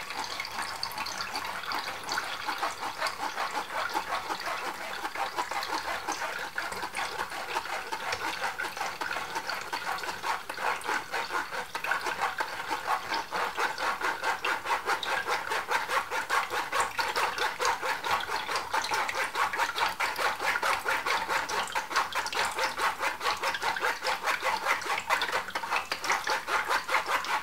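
Beetroot pulp being worked with a spoon against a stainless-steel mesh sieve, a continuous wet scraping and squelching that flickers rapidly in level, with beetroot juice trickling through into a plastic jug below.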